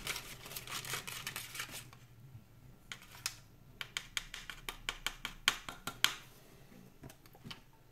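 Small plastic spoon stirring and scraping in a plastic candy-kit tray: a quick run of light clicking scrapes for about two seconds, then, after a short pause, scattered clicks and taps.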